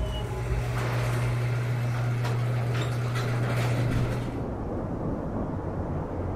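Edited film soundtrack: a low, steady hum under rushing whooshes, then about four seconds in the hum and the high end cut away, leaving a deep rumble.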